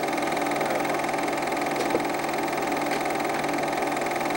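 Steady mechanical hum with a faint click about two seconds in, typical of a Super 8 film projector running.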